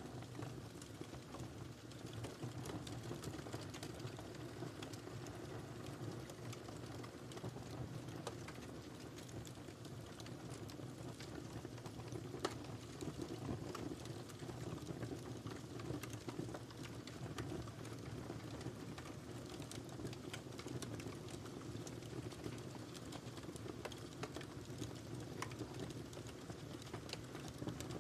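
Fire burning in a fireplace, crackling steadily with frequent small pops and snaps over a low rush of flame, and one louder pop about twelve seconds in.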